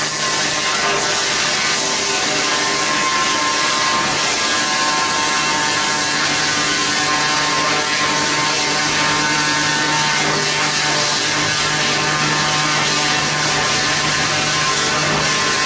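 Log debarking machine's rotary cutter head milling the bark off a log as it turns on the roller conveyor: a loud, steady machine noise with a hiss of flying chips.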